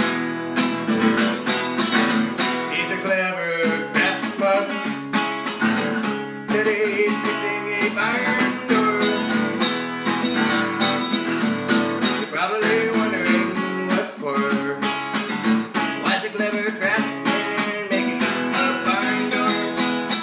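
A man singing a short theme song while strumming an acoustic guitar in a steady rhythm.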